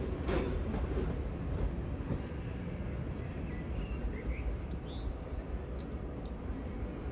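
Siemens Desiro HC electric multiple unit rolling away over the tracks, its low rumble slowly fading, with a wheel click over a rail joint just after the start.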